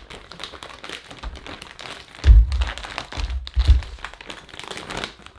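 Clear plastic bag full of cannabis buds crinkling and rustling as it is handled and opened. There are three dull, low thumps, about two, three and three and a half seconds in.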